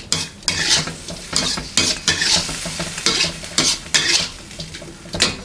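A metal wok spatula scraping and tossing chicken and broccoli around a wok, in quick, uneven strokes about twice a second, with the food sizzling in the hot oil.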